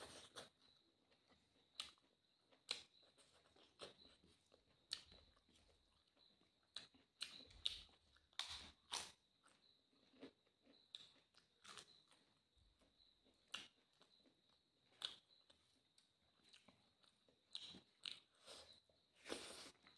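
Eating sounds: mouth chewing and smacking, with sharp crunches as crisp papad is bitten, coming irregularly a second or two apart.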